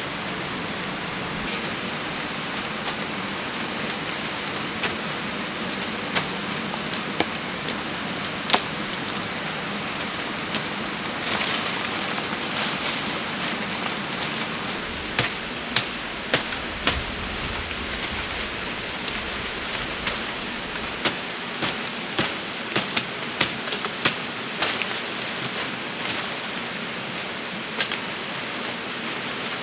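Steady rushing water noise with frequent short, sharp clicks and taps over it, the clicks coming thicker in the second half.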